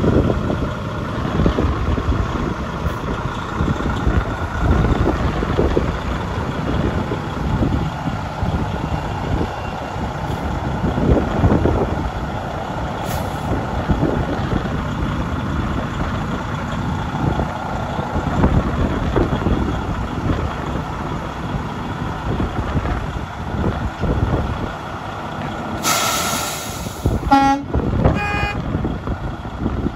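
Freightliner Cascadia truck tractor's diesel engine idling with a steady, uneven low rumble. Near the end comes a loud burst of compressed-air hiss lasting about a second, then a quick run of short horn toots.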